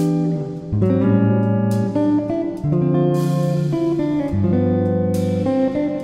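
Background music with sustained pitched notes that change about every second, no speech.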